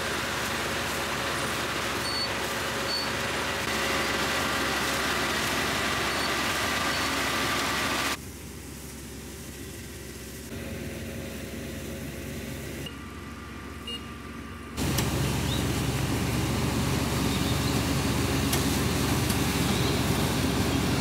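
Small Iseki Frontier combine harvester running as it cuts rice, a steady engine drone with a mechanical whir. About eight seconds in the sound drops much quieter for some seven seconds, then the machine comes back louder and deeper.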